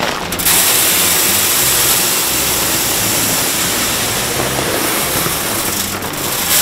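Corn and soybean feed pouring from a bag into a metal deer-feeder trough: a steady rushing hiss of grain on metal. It starts about half a second in and stops near the end.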